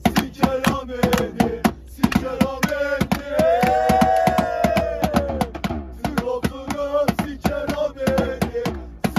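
Music with a quick, even percussion beat and a melody line, with a long held note in the middle that slides down at its end.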